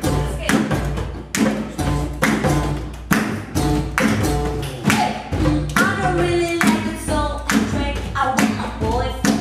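Beatboxing through a microphone and PA with djembe hand drums playing along on a steady beat. About halfway through, a voice starts singing a melody over the rhythm.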